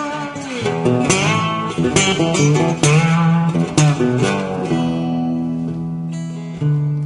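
Background music: guitar playing, with strummed chords and sliding notes about once a second, then a held chord ringing out before a new strum near the end.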